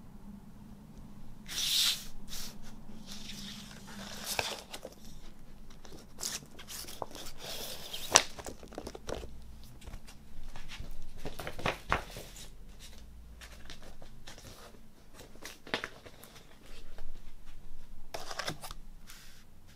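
Paper and card being handled: a record sleeve and printed inserts sliding, rustling and being set down on a table, with a few sharp taps and scrapes in between.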